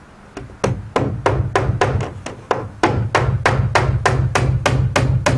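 Hammer driving a 1¾-inch nail up through a tongue-and-groove wood soffit board into the fascia: a quick, steady run of sharp blows, about four a second, starting about half a second in.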